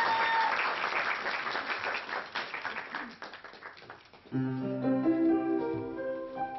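Audience clapping that dies away over the first few seconds. About four seconds in, a keyboard starts playing sustained chords.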